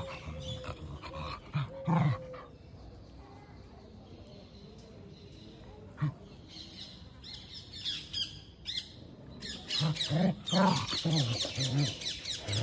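Two dogs play-fighting, giving short growls and snarls in a few spells: a couple at the start, one about six seconds in, and a busy run near the end. Birds chirp rapidly through the second half.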